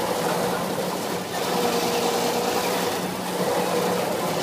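Spinning carnival ride's machinery running: a steady mechanical hum with a tone that comes and goes every second or two over a noisy wash.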